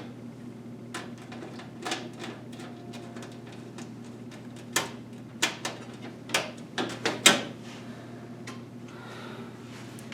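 Metal parts of a PC case being handled: a few sharp clicks and knocks, several in quick succession about halfway through, over a steady low hum.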